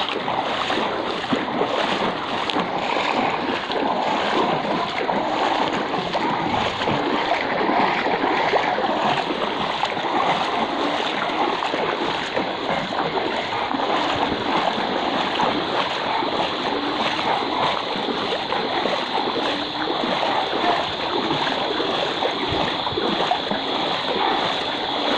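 Legs wading through floodwater: steady splashing and sloshing of moving water.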